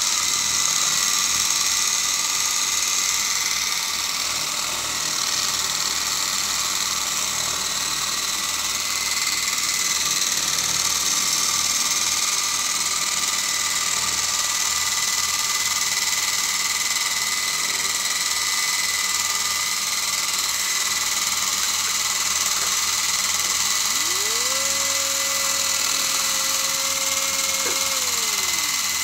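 Toy coaxial RC helicopter's small electric motors and rotors spinning: a steady high whine over a whirring hiss. Near the end a lower tone rises, holds for a few seconds and falls away.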